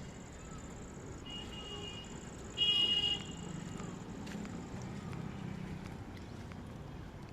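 A short, high-pitched buzzy tone, about half a second long, a little over two and a half seconds in, over a steady low background hum with fainter high tones before and after.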